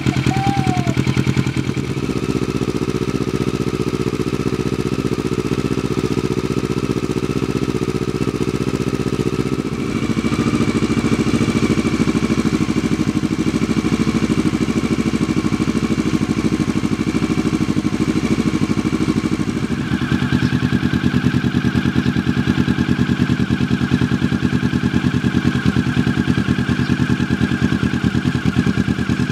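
Kawasaki ER-6n's parallel-twin engine idling steadily through a Yoshimura slip-on exhaust, its tone shifting slightly a few times.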